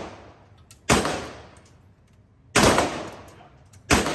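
Three single gunshots, about a second and a half apart, each with a short trailing echo.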